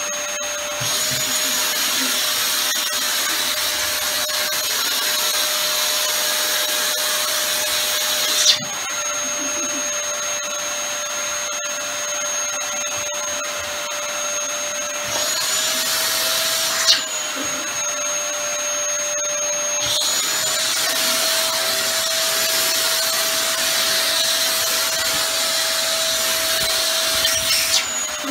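Canister vacuum cleaner running steadily with a high motor whine, its pitch shifting several times as the airflow through the wand changes. A sharp knock comes twice, once about a third of the way in and again a little past the middle.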